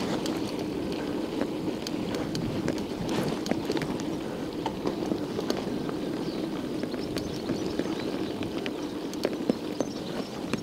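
1991 Scott Montana mountain bike being ridden over a rough road: steady tyre noise with many small irregular clicks and rattles from the bike.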